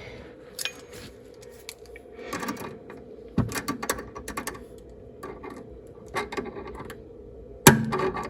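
Open-end wrenches clicking and clinking against the metal fitting of a front air-suspension lowering link as it is tightened, in irregular short clatters, with one sharper metal knock near the end.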